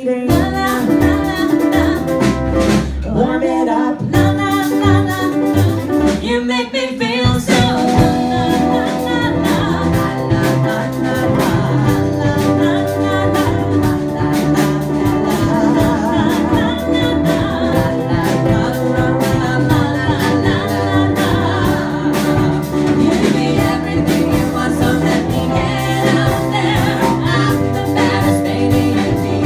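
Live acoustic band music: a strummed ukulele and a bowed upright bass accompanying a man and a woman singing, the music filling out from about seven seconds in.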